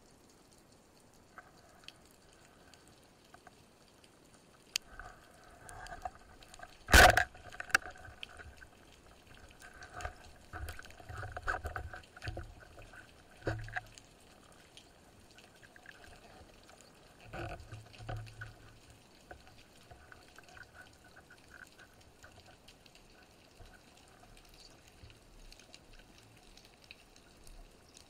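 Underwater water sounds with bubbling and scattered small clicks, and one sharp, loud crack about seven seconds in.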